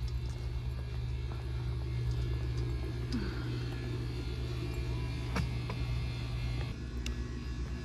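Steady low hum of running equipment, with a sharp click about five seconds in; the hum eases off near the end.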